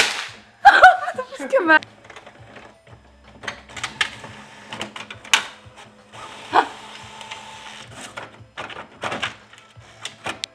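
Desktop printer printing and feeding out a page: a run of clicks and mechanical whirring from the paper feed and print head, over a steady hum.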